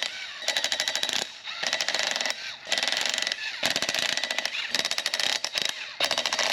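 Impact wrench hammering in repeated short bursts of about a second each, with brief pauses between, as bolts are run off.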